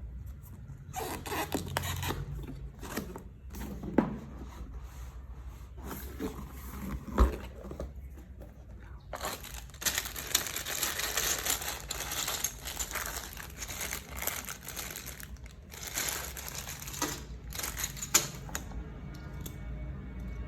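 Packaging crinkling and rustling as it is handled, with a few sharp knocks, loudest and most continuous in the middle stretch, over background music.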